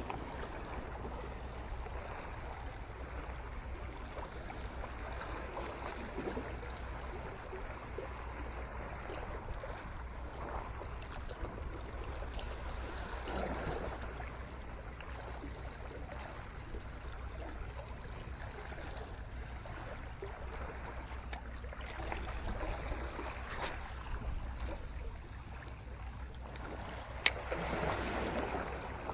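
Small sea waves washing and lapping against the rocks of a breakwater, a steady low wash, with one sharp click near the end.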